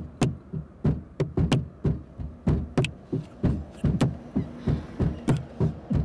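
Finger snaps and hand taps in quick, uneven succession, about three a second.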